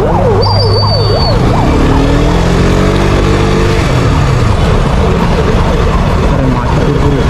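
Single-cylinder engine of a KTM RC125 motorcycle running at low speed as it pulls up, its pitch rising and falling over a few seconds in the middle. Street traffic is heard behind it, with a siren wailing up and down quickly that fades in the first second.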